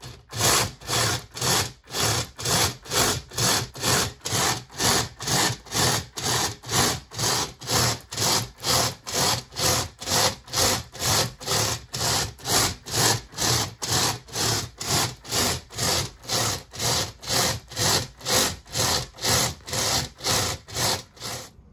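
3D-printed cycloidal-gear robotic actuator with a brushless motor, swinging its aluminium arm rapidly back and forth. Its gear and motor noise swells with each stroke and dips at each reversal, about two strokes a second, steady throughout.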